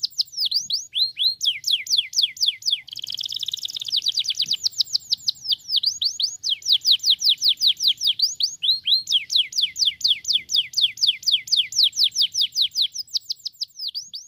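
Canary singing: fast trills of repeated downward-sweeping whistled notes, changing from one phrase to the next, with a short buzzy rolling phrase about three seconds in.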